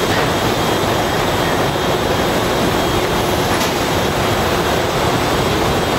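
Steady machinery noise from a running robotic depalletizing line, with conveyors and robot working: a loud, even din with faint steady tones in it.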